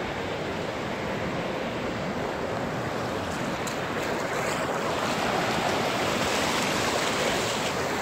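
Gulf of Mexico surf washing onto the beach: a steady rushing that swells slightly about five seconds in and eases near the end.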